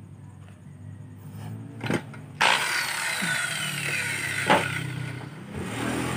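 Handheld electric circular saw switched on about two and a half seconds in, starting suddenly and then running loudly at full speed, with a sharp knock partway through. It is readied for a 45-degree cut in a mahogany board.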